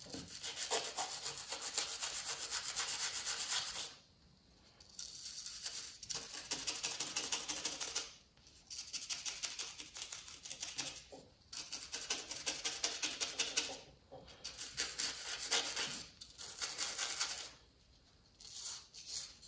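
A toothbrush scrubbing fast back and forth over a small painted model part, wearing the wet top coat away to expose the metallic colour underneath. The scrubbing comes in runs of a few seconds with brief pauses between them.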